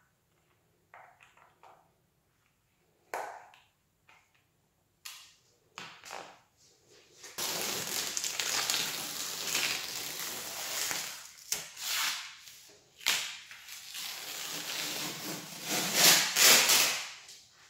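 A few light clicks and scrapes as a screwdriver tightens the screw of a wall socket cover. Then, from about seven seconds in, painter's masking tape is peeled off a door frame in long, rough tearing pulls, loudest near the end.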